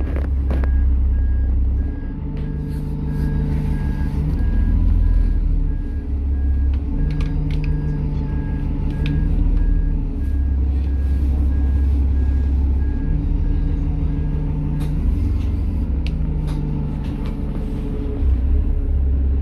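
Dennis Trident double-decker bus heard from on board: the diesel engine drones low, its note shifting every few seconds as the bus drives and changes gear, over rattles and clicks from the bodywork. A faint, evenly repeating beep runs through the first three-quarters or so.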